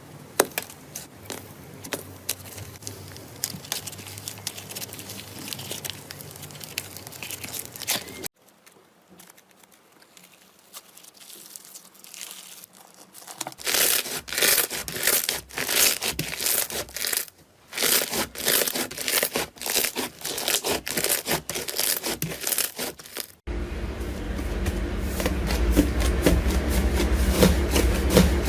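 Hands squishing, stretching and pressing slime, with dense sticky crackling and clicking. The sound changes abruptly a few times as one clip gives way to another, and it is louder in the second half.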